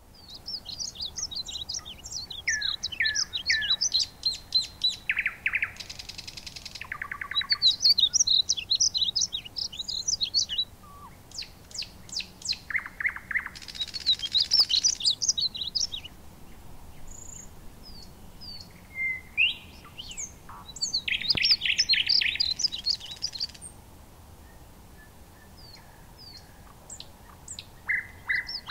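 Small birds chirping and trilling in quick, repeated high phrases, with a few buzzier calls mixed in.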